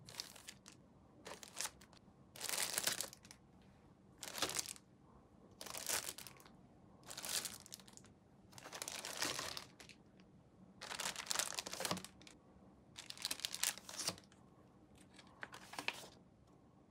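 Hand work on plastic model-kit parts: about a dozen short scratchy, rustling strokes, each under a second, one every second or so.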